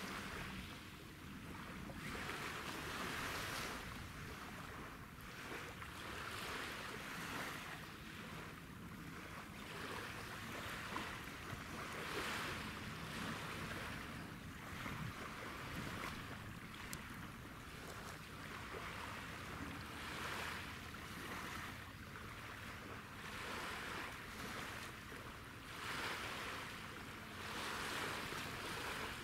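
Small waves washing on the shore, swelling and easing every couple of seconds.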